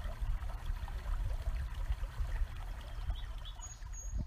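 Wind buffeting the microphone outdoors, an uneven low rumble, with a few faint short chirps above it.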